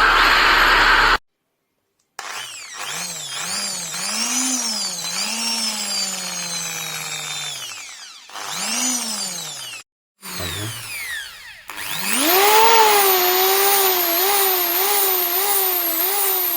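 Einhell TH-ID 1000 E corded impact drill running free in short bursts, its motor whine rising and falling as the speed is varied. Near the end it spins up and holds a higher speed with a wavering pitch. It opens with about a second of harsher, denser noise that cuts off suddenly.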